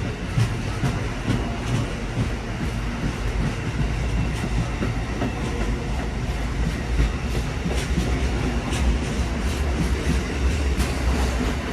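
Amtrak Northeast Regional passenger train rolling through the station, a steady low rumble with wheels clicking over rail joints several times a second.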